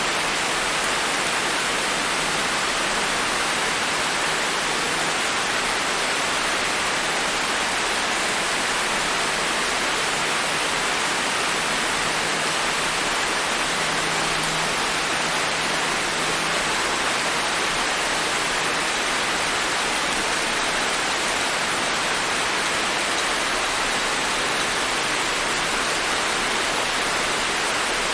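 Steady rain falling, an even hiss of many drops with no distinct individual hits.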